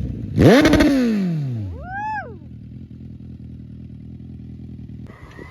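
Suzuki Bandit 1250's liquid-cooled inline-four revved once with a quick throttle blip, the pitch shooting up and falling back over about a second, then idling steadily. About five seconds in, the idle stops and a steady whirring hiss of the radiator cooling fan takes over.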